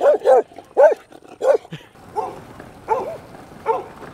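Small dog barking repeatedly at a bicycle it runs beside, about two sharp barks a second, the barks turning fainter and further apart after about a second and a half.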